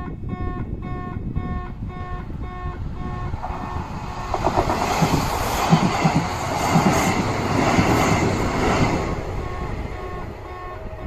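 Railway level crossing warning bell ringing with a listless, unenthusiastic-sounding electronic tone, repeating about two and a half times a second. About three and a half seconds in, a train passes over the crossing, its wheels clattering and squealing and drowning out the bell for about six seconds; the bell is heard again briefly near the end.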